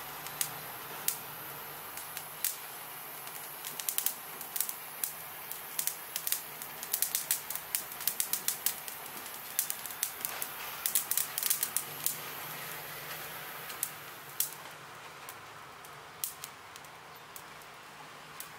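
Podocarpus foliage burning under a handheld butane torch: the torch's jet hisses steadily while the burning leaves crackle and pop, the crackling thickest in the middle. About fourteen seconds in the hiss stops and only a few scattered pops follow as the charred leaves smoulder.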